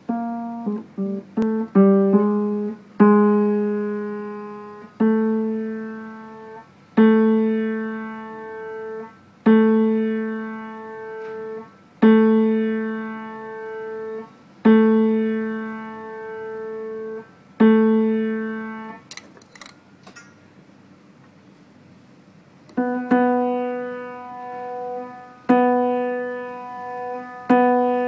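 Upright piano notes with a muting strip woven between the strings: a quick run of short notes, then one note struck over and over, each ringing out and fading for about two seconds. After a pause with a few clicks, a slightly higher note is struck repeatedly with a blue muting strip in place. The notes test how well the strip silences the unison strings for tuning.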